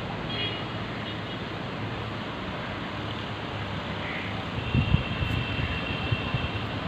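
Steady hiss of a street in heavy rain, with vehicles passing on the wet road. Wind bumps against the microphone about two-thirds of the way through, and a faint high whine sounds for a second or so.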